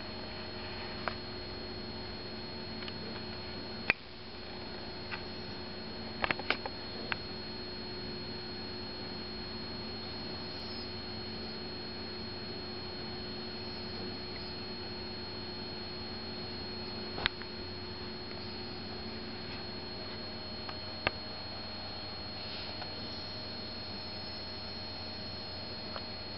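Steady electrical hum with a constant high whine over it, broken a few times by short sharp clicks.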